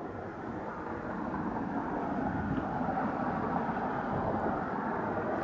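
Steady rumble of a motor vehicle driving, growing a little louder over the first couple of seconds and then holding even.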